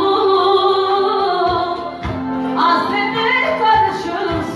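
A woman singing a Turkish song in full voice over band accompaniment, with held instrumental notes and a regular drum beat underneath.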